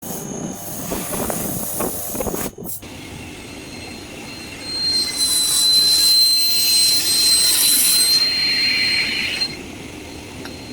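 Metal-cutting machinery cutting a pneumatic actuator cylinder: rough grinding noise for the first couple of seconds, then, after a short break, a loud high-pitched squeal with hiss for about four seconds.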